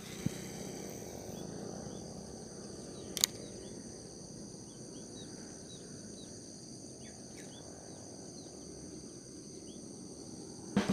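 Steady high-pitched insect chorus, with faint short bird chirps scattered through and a single sharp click about three seconds in.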